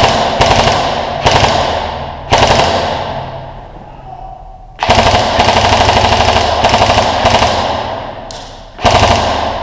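Airsoft electric gun firing full-auto in a string of bursts: several short ones, then a long burst of about three seconds starting about halfway through, then two more short ones near the end. Each burst trails off slowly.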